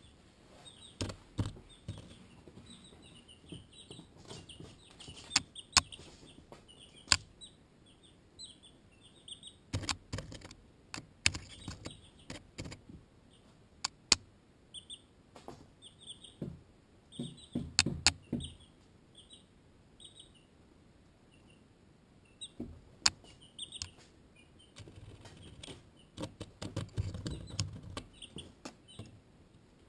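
Baby chicks (Barred Rock and Americana) peeping in many short, high cheeps. Among the peeps are sharp taps and knocks as chicks peck at and bump against the camera, with low bumping and scuffling close to the microphone around the middle and near the end.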